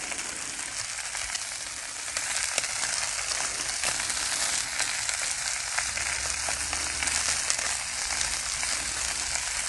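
Ribeye steaks with pats of butter sizzling on a hot flat-top griddle: a steady frying hiss dotted with small crackles, a little louder from about two seconds in.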